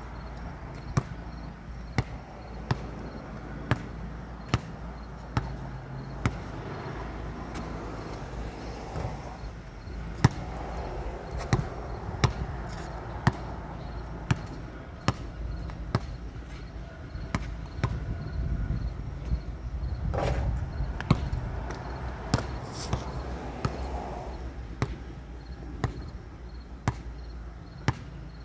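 Sharp thuds repeating roughly once a second, slightly irregular, over a steady low hum.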